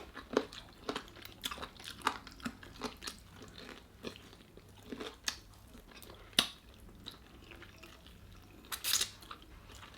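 Close-miked chewing and crunching of crispy Jollibee Chickenjoy fried chicken: irregular small crackles of the breading, with one sharper crunch about six seconds in.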